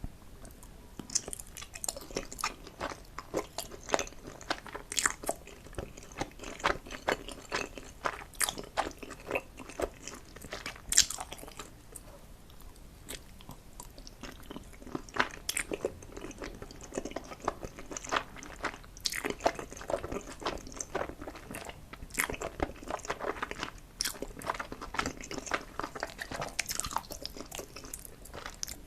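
A person biting and chewing food, many irregular small crunchy clicks, with a short lull about twelve seconds in.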